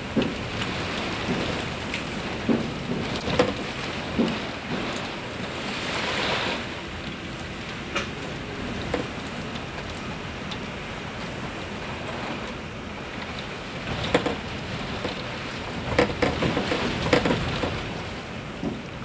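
Wind-driven rain lashing a window in a storm with gusts over 90 mph: a steady rush that swells with the gusts, broken by sudden sharp raps on the glass, most of them in the first few seconds and again near the end.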